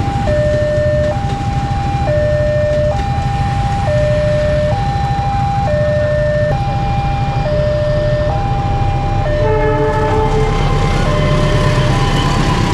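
Railway level-crossing warning alarm sounding its two-tone electronic signal, alternating a higher and a lower note, each held just under a second, over a steady low rumble. About nine and a half seconds in, a train horn sounds briefly, and the rumble of the diesel locomotive and passenger coaches entering the crossing grows toward the end.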